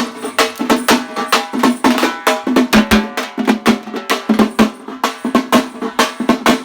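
Fast drum-driven folk music for a karagam dance: rapid drum strokes, about four to five a second, under a held melody line.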